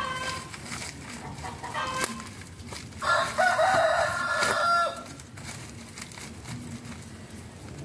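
A rooster crowing once, a pitched crow of about two seconds starting about three seconds in, with a few short chicken clucks before it.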